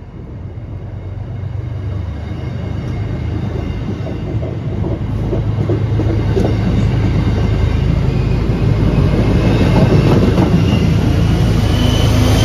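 MBTA commuter train's bi-level coaches rolling past with a steady rumble and clicking wheels, growing louder as the diesel locomotive pushing at the rear draws near. A brief high wheel squeal comes in near the end.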